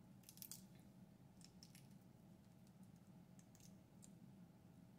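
Faint crackling clicks of a boiled shellfish shell being peeled apart by hand, in a few short bursts, the loudest about half a second in. Otherwise near silence over a low steady hum.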